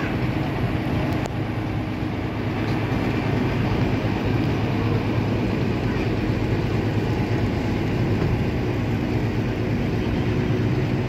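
A river vehicle ferry's engine running under way with a steady low drone.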